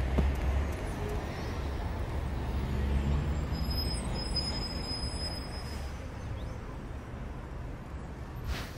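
Steady low rumble of street traffic or an idling vehicle, with a thin high squeal for a couple of seconds in the middle.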